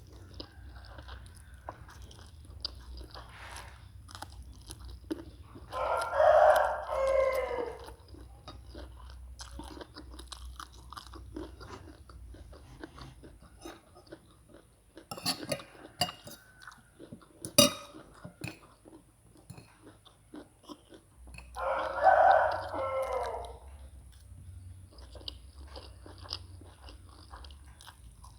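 Close-up chewing and crunching as someone eats noodles, with small wet clicks throughout and a few sharp knocks midway. Twice, about six seconds in and again near twenty-two seconds, a rooster crows loudly, each crow lasting about a second and a half and falling in pitch at the end.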